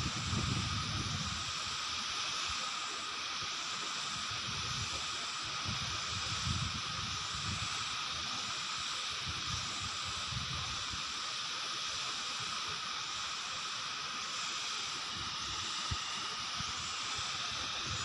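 Wind buffeting the microphone in uneven gusts over a steady rushing hiss from the distant waterfall.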